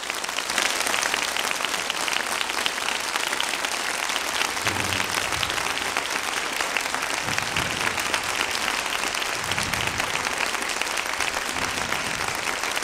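A large audience applauding steadily: many hands clapping at once in a dense, even patter that holds the same level throughout.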